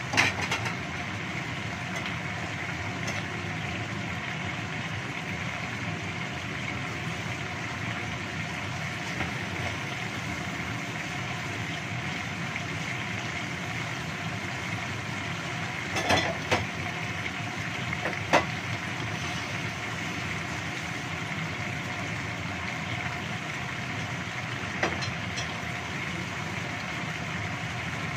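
Chicken in sweet soy sauce simmering in a wok over a gas burner as the sauce cooks down: a steady bubbling and burner noise, with a few sharp pops, mostly around the middle.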